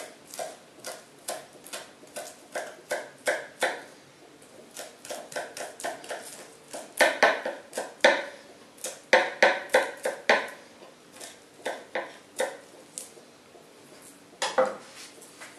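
Chef's knife chopping green garlic on a plastic cutting board: repeated sharp taps of the blade on the board, about two to four a second, in quicker runs around the middle.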